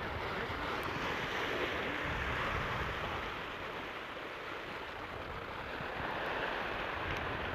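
Ocean surf washing over a rocky shoreline, a steady rushing with no let-up.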